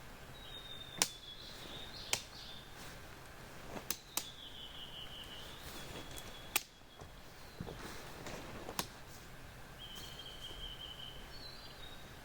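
Quiet pine-forest ambience. About six sharp isolated snaps come at irregular intervals, and several long, high whistled bird calls sound, some gently falling in pitch.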